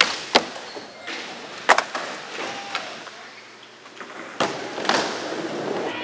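Skateboard on a concrete skatepark floor and ledge: wheels rolling, broken by about five sharp clacks of tail pops, landings and the board striking the ledge.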